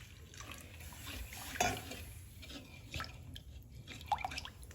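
Milk and roasted gram flour being stirred in a pan: faint liquid sloshing with a few light knocks of the utensil against the pan.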